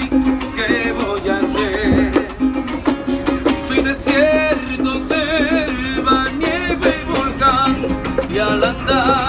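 Live acoustic music: a Venezuelan cuatro and an acoustic guitar strummed together in a lively Latin rhythm, with a voice singing along.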